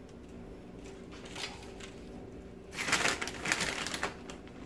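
Crinkly rustling from hands sprinkling shredded mozzarella onto sausage-stuffed zucchini boats on a parchment-lined tray. It is faint at first and louder for about a second and a half past the middle.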